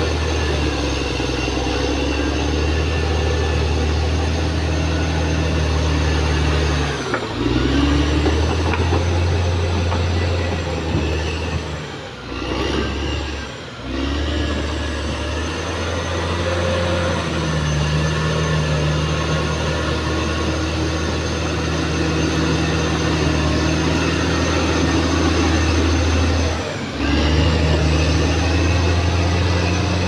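Diesel engine of a Caterpillar D6R XL bulldozer running steadily under work. It dips briefly in pitch and level three times: about a quarter of the way in, around the middle and near the end.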